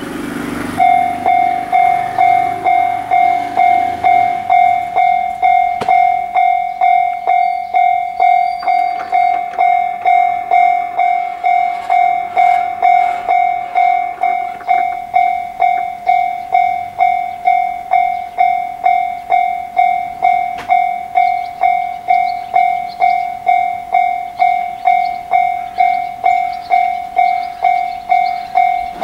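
Japanese railway level-crossing warning bell: an electronic ding of one steady pitch, repeating evenly about twice a second, starting just under a second in.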